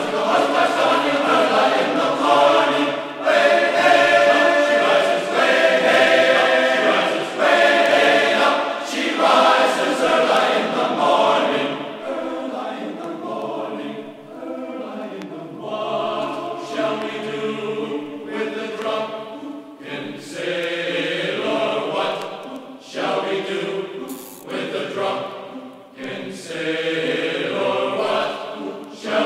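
Background music of choral singing, voices chanting in sustained phrases.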